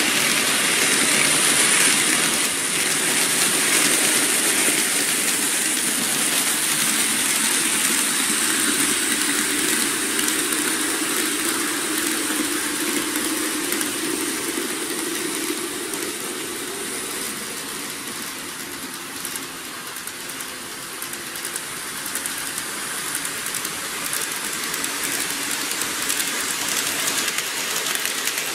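N gauge model trains running along the layout track: a steady rumble of wheels and motors that fades a little about two-thirds through, then swells again.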